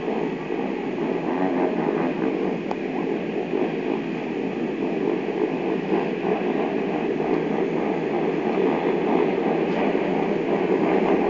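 A group of speedway motorcycles' single-cylinder 500 cc engines running and revving across the track, blending into a steady rumble that grows slowly louder.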